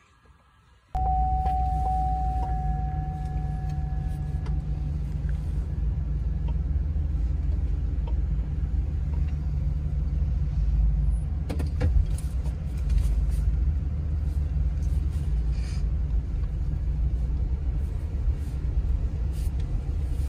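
Car or truck driving, heard from inside the cab: steady low engine and road rumble that starts suddenly about a second in, with a few knocks from bumps. A clear steady tone sounds for a few seconds after the rumble starts, then fades out.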